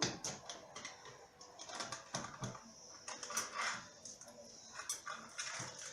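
Scattered light clicks, taps and knocks of kitchen things being handled, such as a plate, utensils and a jar, at an irregular pace.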